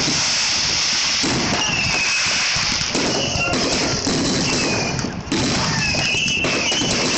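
Fireworks display going off in a dense, continuous barrage of overlapping bursts and crackle, with high gliding tones heard several times. There is a brief dip in level about five seconds in.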